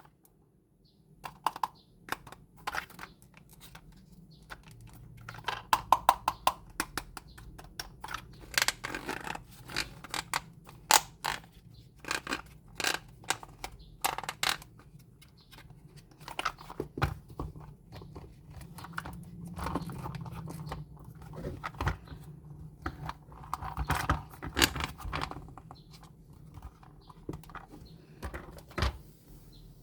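Close-up handling sounds of toy unboxing: plastic packaging crinkling and tearing, with irregular clicks and taps of small toy parts.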